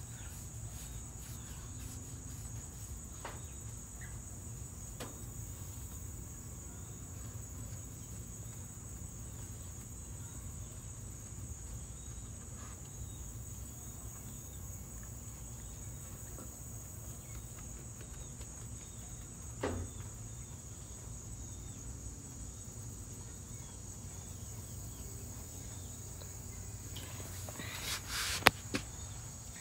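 Insects, crickets or cicadas, chirring in one steady high-pitched drone. There is a short knock about two-thirds through and a louder sharp knock near the end.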